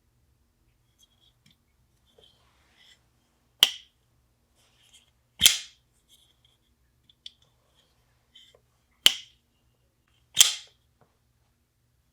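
Kizer Beyond folding knife with a titanium handle being flipped open and closed: four sharp snaps of the blade locking and shutting, coming in two pairs, with faint small clicks of handling between them.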